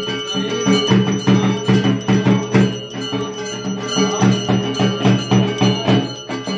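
Brass puja hand bell rung continuously, its rapid strikes holding a steady high ring, over music with a regular beat.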